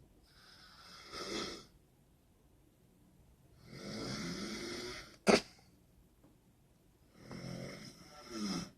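A woman snoring loudly in her sleep: three long snores a few seconds apart, with a single sharp click just after the second one.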